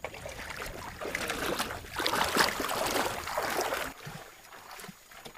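Water splashing and sloshing around a kayak, loudest in its middle and stopping abruptly about four seconds in.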